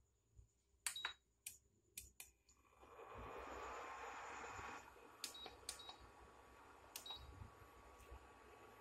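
Usha induction cooktop's touch panel beeping as its buttons are pressed: a short beep about a second in, a few button clicks, then three more beeps between five and seven seconds. From about three seconds the cooktop runs with a steady hiss and a faint whine as it starts heating.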